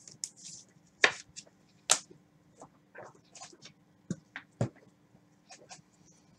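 Trading cards being handled on a card table with gloved hands: scattered clicks and taps with brief scrapes, the two loudest knocks about one and two seconds in and another pair around four and a half seconds.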